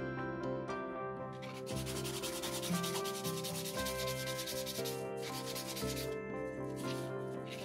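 Sandpaper rubbing back and forth across the edge of a cured resin casting, dry sanding. The rubbing starts a little over a second in, breaks off briefly around five seconds, then resumes.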